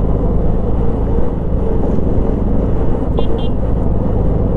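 Benelli TRK502's parallel-twin engine running steadily as the motorcycle rolls along a gravel road. Two short high beeps come about three seconds in.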